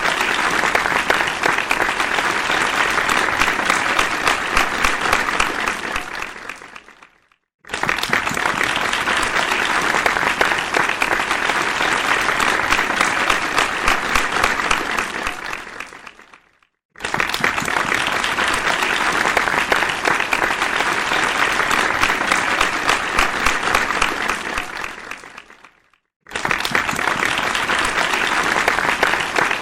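Applause from a large crowd, many hands clapping densely and evenly. It comes in stretches of about nine seconds, each starting abruptly at full strength and fading out over its last couple of seconds into a brief silence before the next begins, with three such breaks in all.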